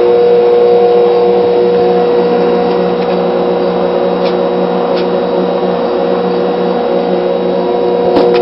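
Automotive battery charger on its highest engine-start setting, humming and buzzing steadily as it drives current through an electrolysis jar of salt water. A few faint ticks sound in the middle.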